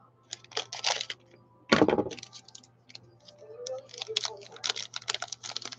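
Crackling and rustling of a foil Topps baseball-card pack wrapper as it is torn open and pulled off the stack of cards, in quick irregular clicks, with one louder thump about two seconds in.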